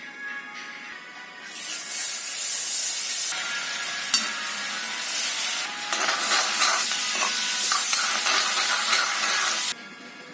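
Food sizzling in a hot pan, a loud hiss that starts about a second and a half in and cuts off suddenly near the end.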